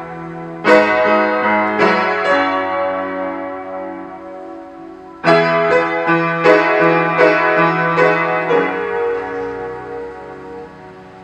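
Upright piano played slowly: chords struck and left to ring out and fade. A fresh chord comes about five seconds in, followed by a few more notes, and the sound dies away near the end.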